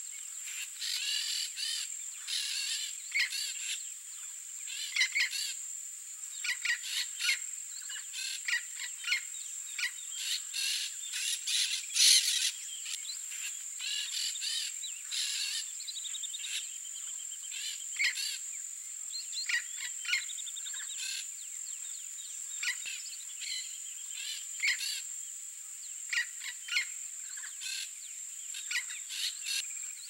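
A steady high-pitched insect drone runs under many short, repeated chirping calls from small animals, with one louder burst about twelve seconds in.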